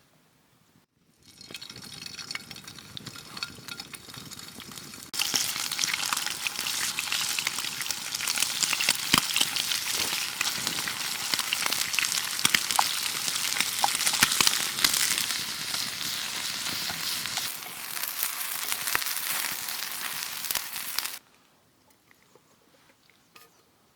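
Food sizzling as it fries in a pan over a wood fire, with scattered crackles; it starts quieter, gets much louder about five seconds in, and cuts off suddenly near the end.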